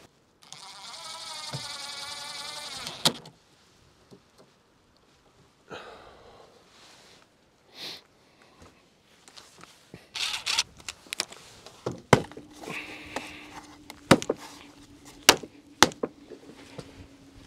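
A cordless drill runs briefly with a wavering whir near the start, then plastic rain gutter sections are handled and snapped together in a series of sharp clicks and knocks in the second half. A steady low hum runs under the last few seconds.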